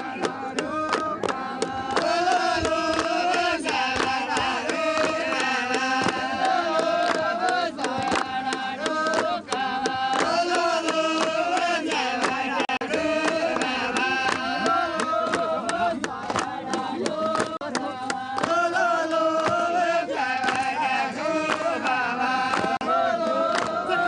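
A group of men singing a repeating chant in unison, with sharp hand claps throughout, as accompaniment to a traditional leaping dance.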